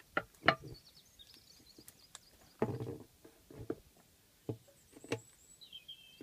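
Steel tyre levers knocking and clacking against a motorcycle wheel rim and tyre as the tyre bead is levered off, in irregular single knocks, with a heavier knock about two and a half seconds in.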